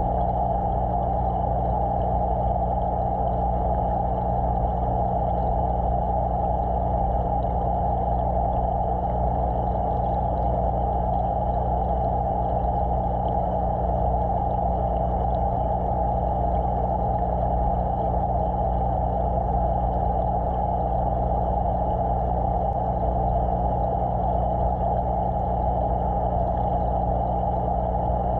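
Steady motor hum and rushing drone of aquarium equipment picked up through the water by a submerged camera, unchanging throughout.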